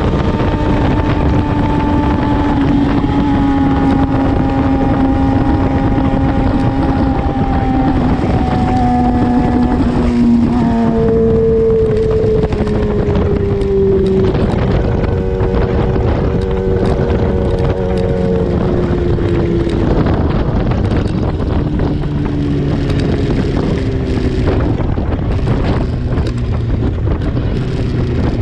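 Racing motorcycle engine heard from the bike's onboard camera as it decelerates from high speed to a crawl. The engine pitch falls steadily, jumping back up at a few downshifts and settling low near the end, under heavy wind noise on the microphone.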